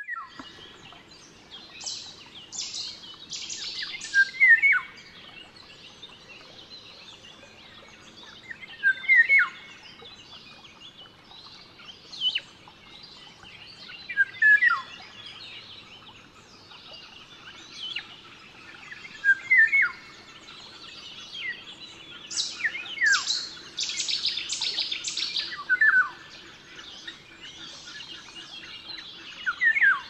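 Oriole singing: short phrases of fluty, down-slurred whistles repeated every few seconds, with two longer bursts of harsh, scratchy chatter.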